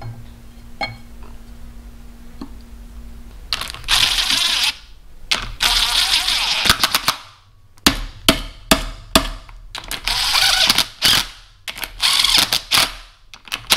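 A DeWalt cordless impact driver hammering bolts down on an engine block cover plate. After a few light clicks of the part being set in place, it runs in repeated rattling bursts of about a second each, with short clicks between.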